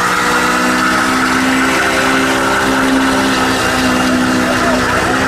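A Honda Civic sedan's engine is held at steady high revs during a burnout while its spinning tyres squeal, the pitch holding even throughout.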